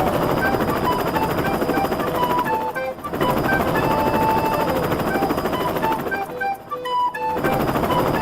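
A fast, whirring rattle of a cartoon propeller sound effect, over a light tune of short melody notes. The whirring drops out briefly about three seconds in and again for about a second past the middle.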